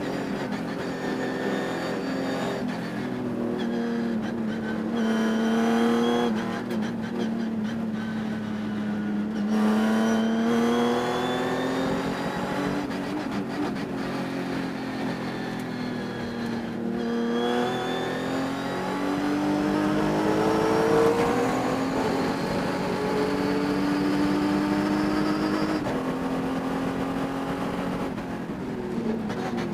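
Race car engine under hard driving, its note climbing through the revs and dropping back again and again as it shifts and brakes through the corners. The engine has a high-RPM miss that the owner could not cure by changing parts.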